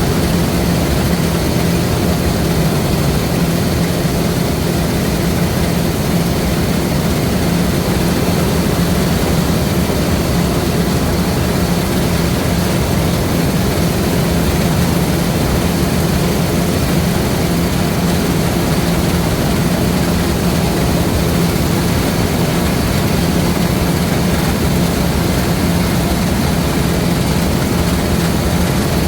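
LOVOL RG130 EVO rice combine harvester running steadily, a constant engine drone with a steady hum that does not change pitch.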